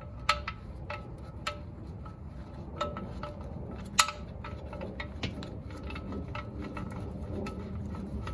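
Engine oil dripping into a galvanized metal drain pan: irregular ticks, each with a short metallic ring, the loudest about four seconds in, over a steady low hum.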